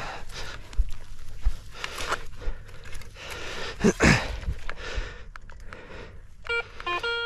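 Crunching and rustling on field soil, then near the end a metal detector gives a quick series of short electronic beep tones at several pitches. The detectorist reads it as a target signal that has grown weaker.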